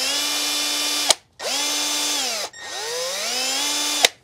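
Cordless drill spinning a car's vehicle speed sensor shaft in three short runs, to test the sensor's output. Each time the motor whine rises in pitch as it spins up; the first and last runs cut off suddenly with a click, the middle one winds down.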